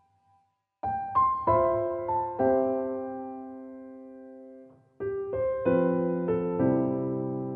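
Background piano music: slow phrases of struck notes and chords that ring and fade away, starting after a near-silent first second, with a second phrase entering about five seconds in.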